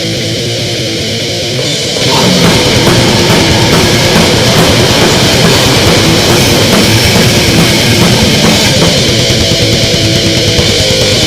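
Grindcore band playing: a distorted electric guitar riff, then drums and the full band crash in about two seconds in and keep going loud and dense.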